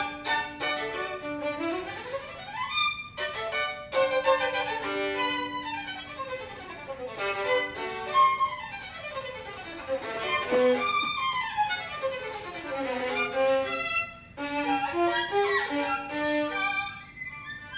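Violin played solo in fast virtuoso passagework, rapid scales and arpeggios sweeping up and down the instrument over and over.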